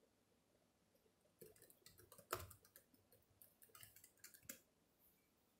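Typing on a ThinkPad X1 Carbon Gen 7 laptop keyboard: a quick run of soft key clicks lasting about three seconds, with one sharper keystroke about midway, as a disk-unlock password is entered.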